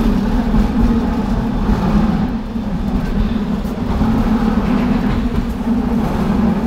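Hong Kong double-decker tram running along its street track, heard from inside on the upper deck: a steady rumble with a low hum.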